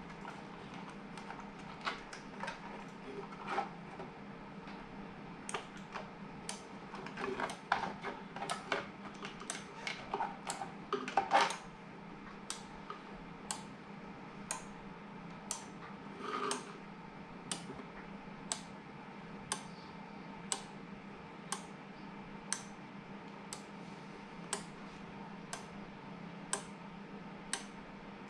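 Plastic handling noise from a 3D-printed electronics enclosure being worked on by hand: irregular clicks, knocks and rattles, loudest about eleven seconds in. After that come sharp single clicks, evenly spaced about once a second, over a steady low hum.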